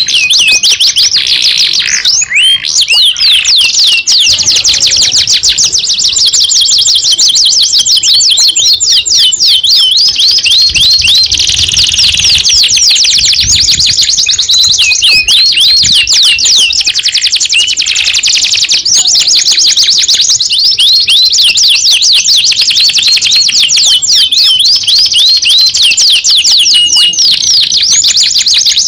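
Domestic canary singing loudly without a break: fast rolling trills and rapid runs of high-pitched chirps, many notes a second.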